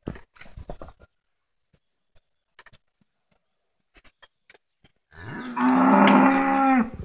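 Cattle mooing: one long moo starting about five seconds in, rising at the onset and then held steady for about two seconds.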